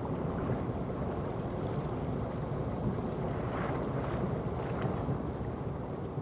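Steady wind buffeting the microphone, a dense low rumble with the wash of sea waves underneath.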